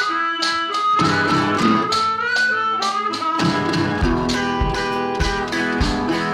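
Background music: plucked and strummed guitar with a steady beat that comes in about four seconds in.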